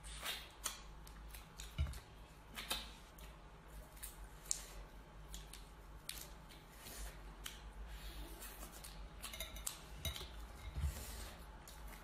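Cooked crayfish shells being cracked and peeled by hand: irregular small crackles and snaps of shell. A steady low hum runs underneath.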